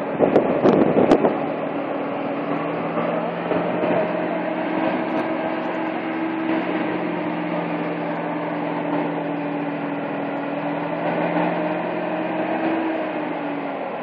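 Aerial ladder fire truck's engine running steadily at raised speed, with a steady hum. Its pitch drops slightly near the end. A few sharp knocks sound in the first second or so.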